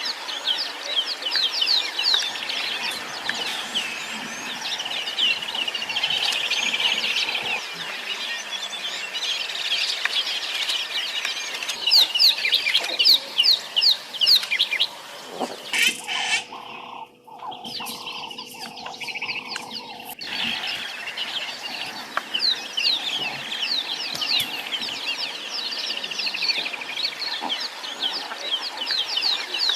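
Wild birds calling in a dense chorus of rapid, repeated chattering notes and fowl-like clucking calls. The birdsong drops away for a few seconds just past the middle, leaving a faint steady hum, then resumes.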